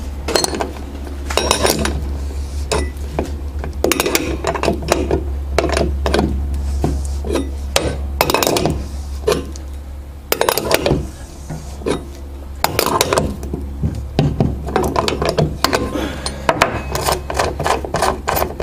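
Irregular metallic clicks and clinks in clusters from a hand rivnut setting tool being worked, drawing a rivnut up tight in a hole in sheet metal. A low steady hum runs underneath and cuts out about eight seconds in.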